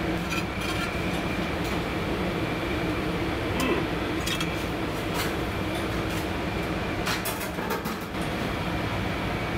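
Steady rumbling hum of kitchen machinery, with a few light metallic clicks and clinks as a metal spatula and fish are set down on a ceramic plate.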